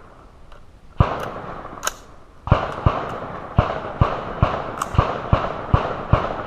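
Gunshots in a live-fire drill: a single shot about a second in, then from about two and a half seconds a rapid string of about eight more shots, two to three a second, each with a short echoing tail.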